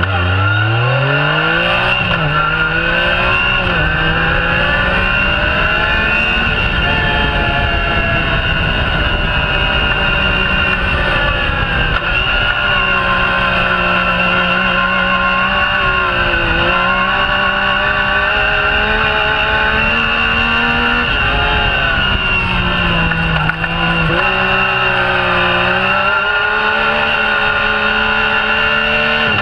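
Yamaha YXZ1000R side-by-side's three-cylinder engine running hard on the dunes, its revs rising and dipping several times as the throttle is worked.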